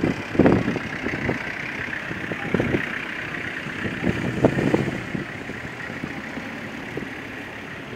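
Classic cars driving slowly past one after another, engines running at low revs. First comes a Peugeot 404 saloon, then a Mercedes-Benz /8 coupé, with the engine sound swelling as each car goes by.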